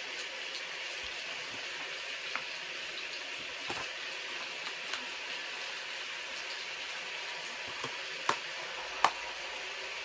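Steady hiss of falling rain, with a few light clicks and knocks on top, the sharpest about eight and nine seconds in.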